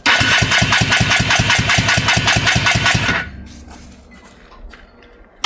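Electric starter cranking a Polaris ATV's two-stroke engine in a quick, even chug of about seven strokes a second for about three seconds, then stopping; a second crank begins at the very end. The cranking is for a compression test, which reads about 120 psi.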